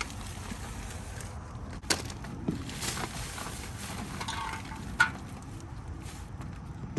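Goods being handled and rummaged through in a dumpster: a few sharp knocks and clacks over a faint steady background, the loudest about five seconds in.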